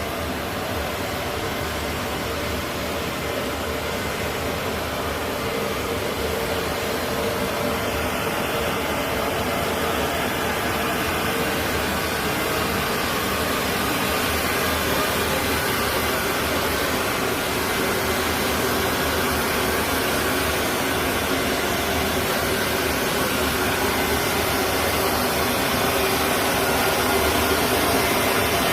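Steady loud mechanical drone of rushing noise with a faint hum, slowly growing louder.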